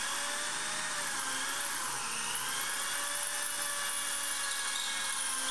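Corded electric hand drill running steadily under load, boring a hole through the metal tube frame of a round baler.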